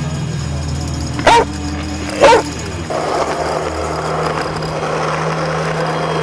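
A dog barks twice, loud and sharp, about a second apart, over background music. From about three seconds in, skateboard wheels roll on asphalt under the music.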